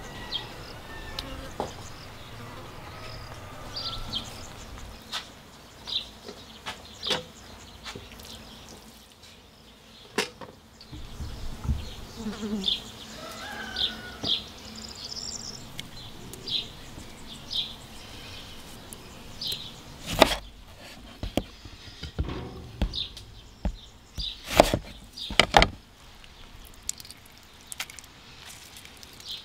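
Insects buzzing, with short high chirps repeating about once a second. About two-thirds of the way in comes a run of sharp knocks and clinks from food preparation at a wooden worktable with a steel bowl.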